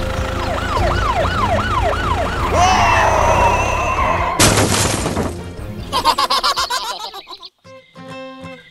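Siren sound effect over background music, wailing rapidly up and down about six times. A short, loud burst of noise comes about four and a half seconds in, and the music drops out briefly near the end.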